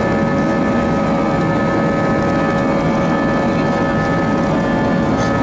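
Airbus A320's IAE V2500 jet engines running heard inside the cabin: a loud, steady rush of noise with several whining tones held at one pitch.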